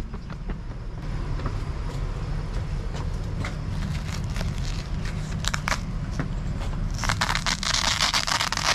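Scattered small clicks and crackles of handling, then about seven seconds in a loud crackling rip lasting about two seconds, over a steady low rumble.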